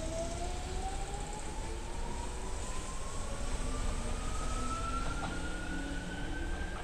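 Tobu 60000 series electric train pulling away and accelerating, its traction motor inverter whine rising steadily in pitch over a low rumble.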